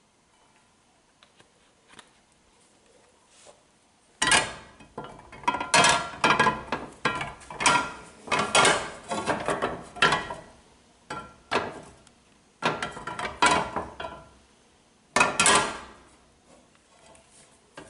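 A metal frying pan being slid and tilted on the stovetop to spread oil across it, making irregular clattering and scraping. It starts about four seconds in, stops briefly, then starts again.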